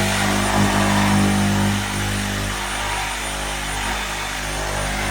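Electric power tool running steadily while cutting the hole through the wall for the range-hood vent; its low tone drops away about two seconds in.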